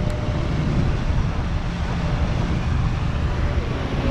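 Passenger ferry under way: the steady rumble of its engines and churning wake, with wind buffeting the microphone.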